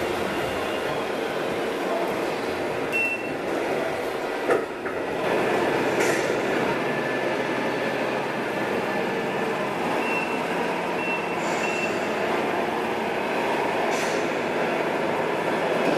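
Simulated diesel truck engine sounds from the sound modules of radio-controlled model trucks, running steadily, with a few short high beeps and brief hisses.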